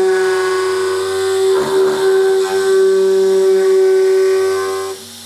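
CNC router spindle running at high speed, a steady high whine with two brief rough patches where the cut seems to catch. It cuts off abruptly near the end.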